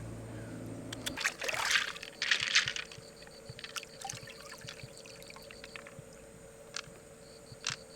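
Water splashing and trickling in two short bursts, about a second and a half and two and a half seconds in, with scattered small clicks between quieter stretches.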